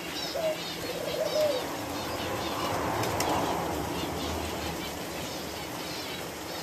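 Aviary birds: a dove cooing twice in the first two seconds, with small birds chirping throughout. A rushing noise swells up around the middle and fades.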